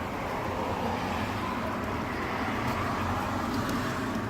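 Steady rushing background noise with a low hum underneath, slightly swelling.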